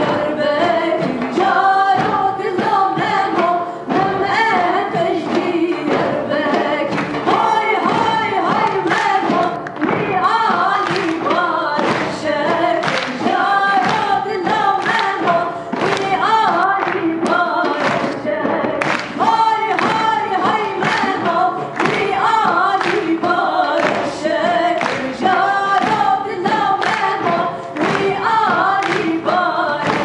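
Two women singing a folk song together, backed by a live band whose drums strike a steady beat.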